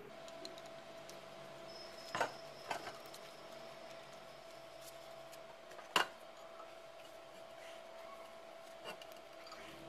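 Hand assembly of small steel parts on a steel plate. There are light rubbing and handling noises and a few sharp metal clinks, the loudest about six seconds in, over a faint steady hum.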